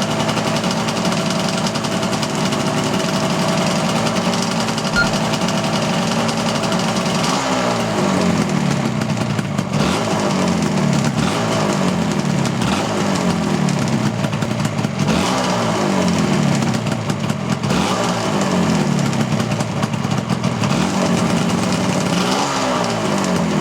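Yamaha RZ250's liquid-cooled two-stroke parallel twin running warm, idling steadily at first. From about seven seconds in it is blipped again and again, each rev rising sharply and falling back, roughly every one to two seconds.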